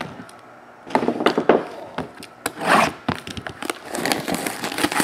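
Hands handling and opening a cardboard trading-card hobby box: a quick run of crackles and clicks, with a longer rustle of wrap or cardboard about two and a half seconds in.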